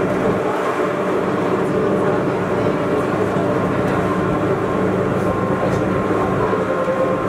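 Gornergrat Bahn electric rack-railway train running uphill, heard from inside the car: a steady rumble of wheels and drive, with a constant motor and gear hum.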